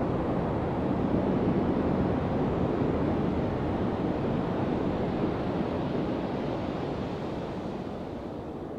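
Steady rushing of wind on the microphone mixed with gentle surf on a beach, easing off toward the end.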